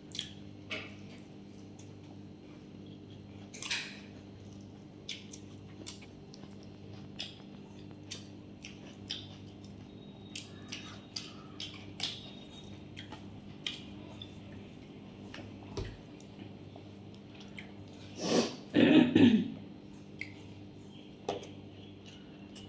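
Close-up eating sounds: chewing with soft clicks and smacks scattered throughout, over a steady low hum. About 18 seconds in there is one louder burst lasting about a second and a half.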